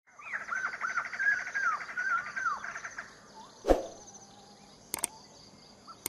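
Parrot calls, rapidly repeated chattering notes that slide up and down in pitch for about three seconds, over a steady faint high hum. A loud sharp knock comes a little past the middle, and two quick clicks near the end.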